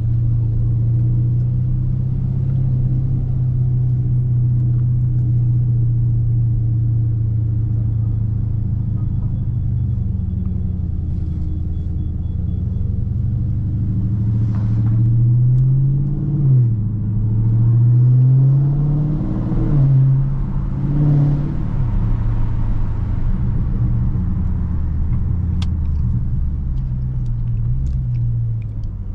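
2019 Dodge Charger Scat Pack's 6.4-litre HEMI V8 running steadily at cruise. About halfway through it revs up, drops briefly as it shifts, and climbs again. It then settles back to a steady, slightly lower note.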